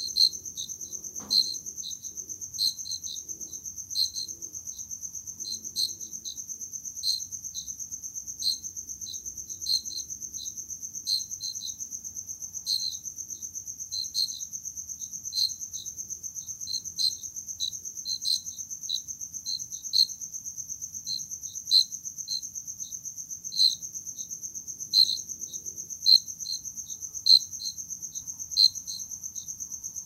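Crickets chirping: short chirps repeating every second or so over a steady high-pitched trill.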